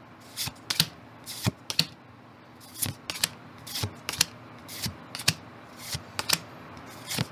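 Pokémon trading cards being flipped one by one from the back of a freshly opened pack to the front, each card giving a short crisp snap against the stack, unevenly spaced about every half second to a second.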